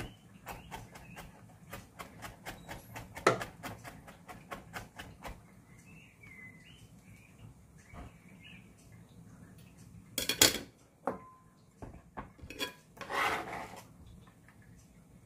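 Kitchen knife chopping rapidly on a cutting board, about four to five strokes a second, for the first five seconds, mincing garlic and chilli in place of a mortar. Then a few louder clatters of kitchenware about ten and thirteen seconds in.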